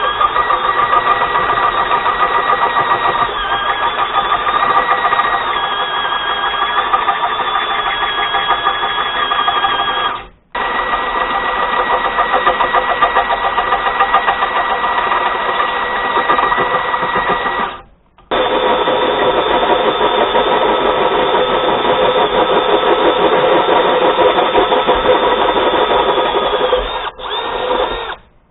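Power cutting tool running with a fast, steady stroke and a motor whine, heard in three stretches split by abrupt cuts, as a steel piece is cut out in the shop.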